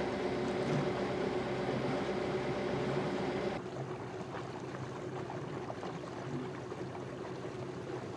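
A sailboat's engine running steadily under way, with water rushing along the hull. About three and a half seconds in the sound drops quieter, leaving water splashing around a towed inflatable dinghy over a fainter engine hum.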